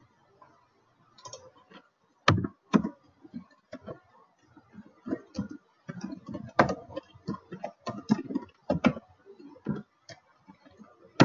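Typing on a computer keyboard: a run of irregular keystrokes, a few a second, starting about a second in.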